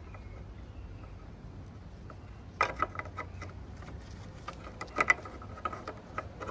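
Plastic clicks and light knocks as a dust-extraction hose adaptor and its bracket are fitted against the metal guard of a DeWalt circular saw: a cluster about two and a half seconds in and another about five seconds in, over a low steady hum.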